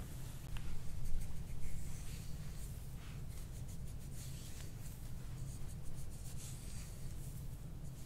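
Hands rubbing and scratching through oiled hair on the scalp and neck: soft, scratchy strokes in quick clusters, over a low steady hum.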